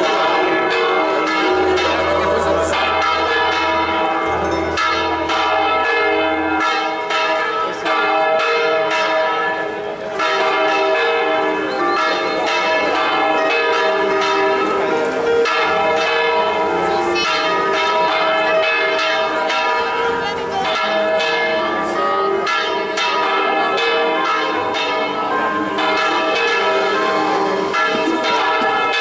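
Church bells ringing a continuous peal, many bells struck in quick succession so that their tones overlap.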